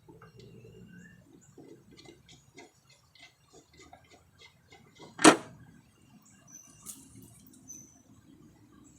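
Faint light clicks of hand tools and parts being handled, then one sharp knock about five seconds in.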